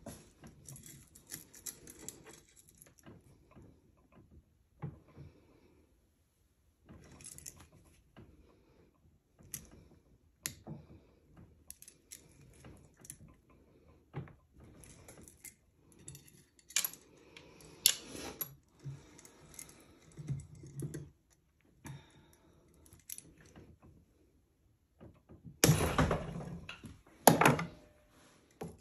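Heavy-gauge silver chain being twisted by hand into curb chain, one end held in a bench vise and the other in locking pliers: irregular metallic clinks and scrapes of the links and tools, in short spells with pauses between. A louder burst of jangling comes near the end.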